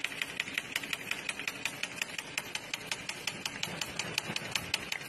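Rapid, regular mechanical clicking, about ten sharp clicks a second, over a faint hiss.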